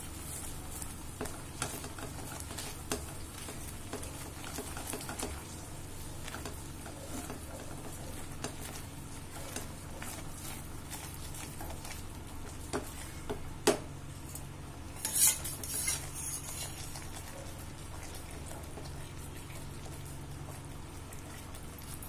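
Silicone spatula stirring and scraping thick badam halwa around a nonstick pan as it cooks in ghee, with a soft sizzle and scattered small clicks. There is a sharp click a little past halfway, then a brief, louder crackle.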